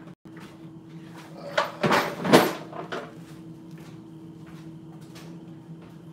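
A few hard knocks and a clattering rattle about two seconds in, the loudest of them near the middle, over a steady low electrical hum.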